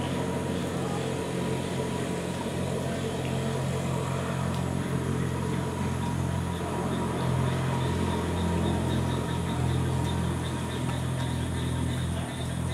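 Steady low hum of an engine running without change in speed.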